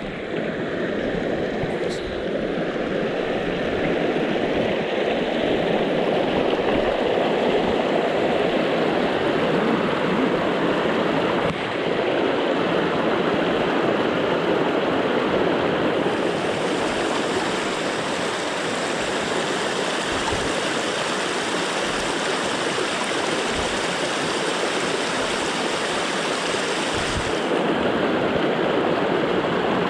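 Rushing river water: a steady, even rush of flowing stream water.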